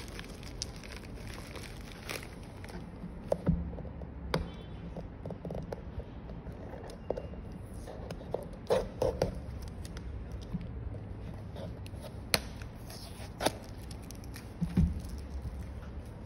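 Plastic bubble mailer crinkling and rustling as it is handled, with scattered clicks and several dull thumps as the mailer and a cardboard phone-screen box are set down on a silicone mat.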